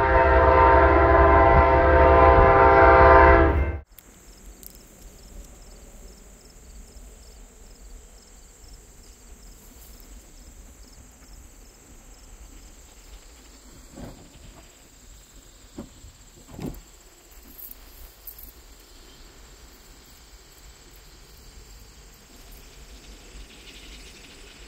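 A train horn sounds one long, loud chord that cuts off sharply about four seconds in. After it there is only faint outdoor ambience with a steady high hiss and a couple of soft thumps.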